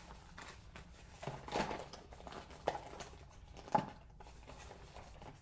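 Hands handling a cardboard box of 12-gauge shotgun slug shells: soft rustling with a few light clicks and taps, the sharpest a little before four seconds in.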